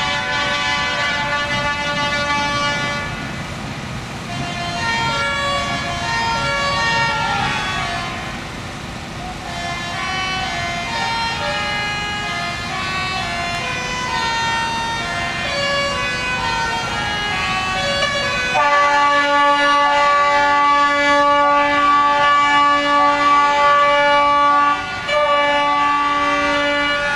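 Several truck air horns sounding at once in overlapping, changing chords. About 18.5 s in, one loud horn chord takes over and is held, with a few short breaks.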